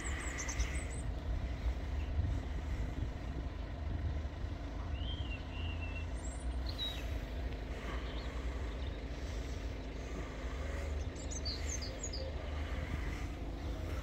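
Outdoor ambience of a steady low rumble, with a few short bird chirps around the middle and again near the end.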